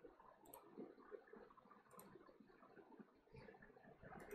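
Near silence: room tone with a few faint, short computer mouse clicks spread through it.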